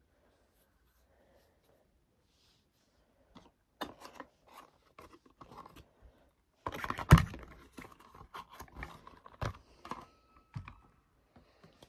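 Cardboard carton being handled and opened: scattered clicks, scratching and crinkling of the card, with one sharp knock about seven seconds in. The first three seconds are near silent.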